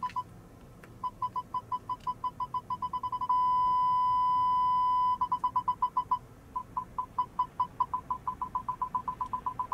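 BMW 645Ci Park Distance Control warning beeping for an obstacle behind the car in reverse. The beeps quicken as the obstacle nears, turn into one steady tone for about two seconds when it is closest, then break back into beeps that slow and quicken again.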